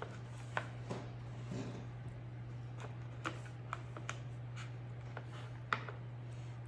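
Metal spoon clicking and scraping against a plastic container while shredded pork is spooned out and served, about a dozen light clicks at uneven intervals, the sharpest near the end. A steady low hum runs underneath.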